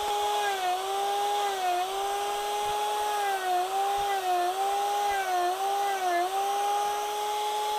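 Small power-carving disc, finer than an Arbortech disc, spinning on an electric power tool and cutting into wood: a steady motor whine that dips briefly in pitch over and over as the disc bites and is eased off.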